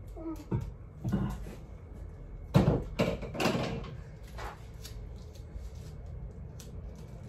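A few knocks and clunks of objects being handled and set down, the loudest about two and a half seconds in, with softer rustling between them.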